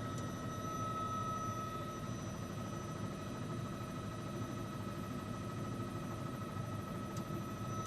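Helicopter in flight: steady engine and rotor noise, with a constant high-pitched tone over a low, even hum.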